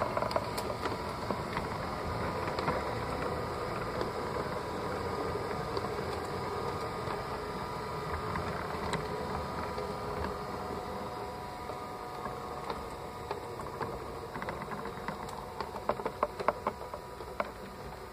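LGB 22460 model rack locomotive's electric motor and gearbox running steadily with a whirring whine, heard from on board the moving train. A run of sharp clicks comes near the end.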